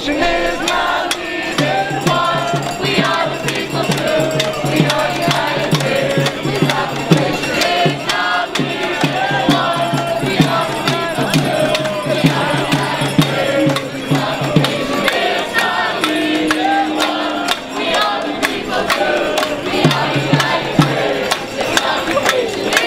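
A marching crowd chanting and singing to hand percussion, with dense rattling shaker and tambourine hits and a low held note under much of it.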